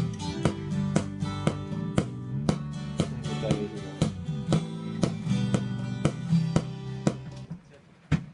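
Acoustic guitar strummed in a steady rhythm of evenly spaced strokes over ringing low notes. The playing dies away near the end.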